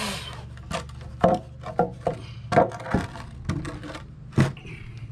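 Irregular hard knocks on timber, about eight in four seconds, over a steady low hum.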